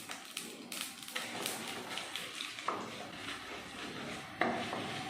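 Mustard seeds, cumin and urad and chana dal crackling and sizzling in hot sesame oil in a pan, with irregular small pops and clicks.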